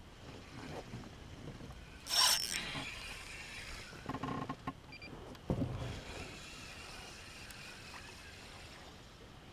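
Water and handling sounds from an Ascend 133X sit-on-top kayak on the water: a short burst of noise about two seconds in, then a few knocks and a dull thump against the hull.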